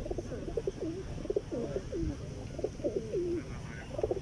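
Feral pigeons cooing: a steady run of low, wavering coos one after another, with a short pause shortly before the end and then a few more.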